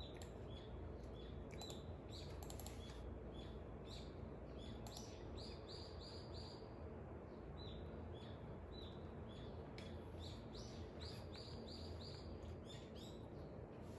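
Small birds chirping at dawn: one short call repeated about twice a second, with two quick runs of higher notes, about five seconds in and again near eleven seconds. Beneath them runs a faint, steady low rumble of wind.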